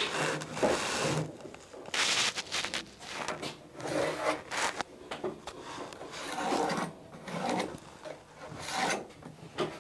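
Pencil scraping along the wooden side of a dinghy's centreplate case in several separate strokes, marking a cutting line.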